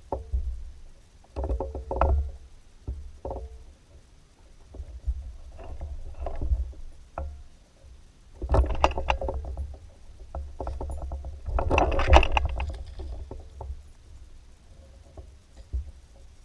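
Kayak paddle strokes, the blade dipping and splashing in the water in irregular bursts a second or more apart, the loudest about halfway through and again later, over a low rumble.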